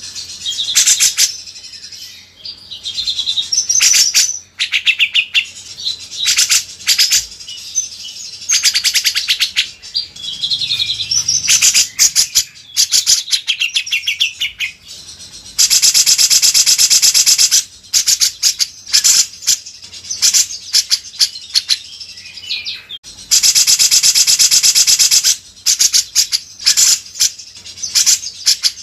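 Songbirds singing in a dense run of chirps, whistles and quick trills, with two long, loud rattling trills of about two seconds each, one near the middle and one about two-thirds of the way in.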